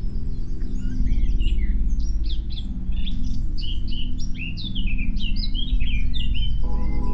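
Several songbirds singing together, a dense run of quick, varied chirps, trills and whistles, over a low steady drone. Near the end, clear steady higher tones join in.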